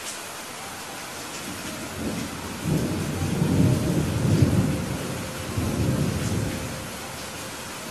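Steady rain hiss with a roll of thunder that rumbles in about two seconds in, peaks around the middle and dies away near the end.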